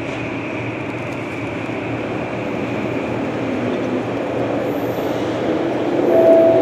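SkyTrain train running near the station, a steady rumble that grows gradually louder.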